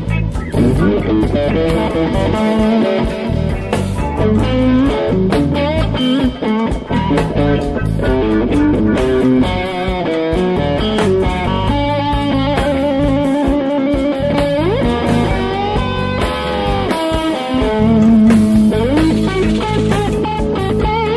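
Instrumental stretch of a song: an electric guitar lead with wavering, bent notes over bass and a steady beat.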